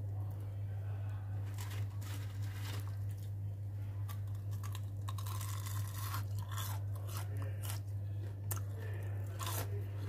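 Irregular crisp crunching and crackling, starting about a second and a half in, over a steady low hum.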